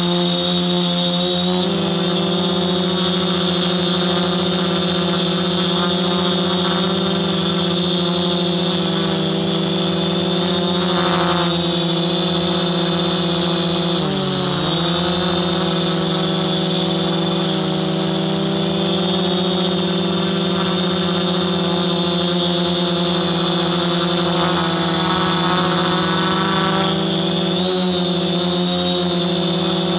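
Multirotor drone's electric motors and propellers running in flight, heard close up from a camera mounted on the craft: a steady, loud hum of several stacked tones. The pitch dips briefly about halfway through as the throttle changes.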